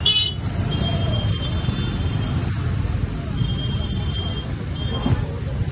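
Street noise: a steady low rumble of traffic and motorcycle engines, with people's voices mixed in, and a brief high-pitched sound at the very start.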